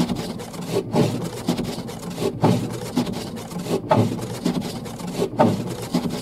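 Car windscreen wipers sweeping back and forth, heard from inside the car: a rubbing swish with a sharp turn about every one and a half seconds, four times, like a drum beat.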